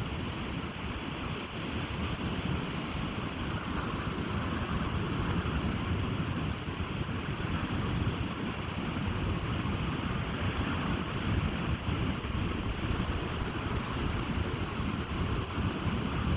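Ocean surf washing on a beach, a steady wash of noise, with wind buffeting the microphone as a low, fluttering rumble.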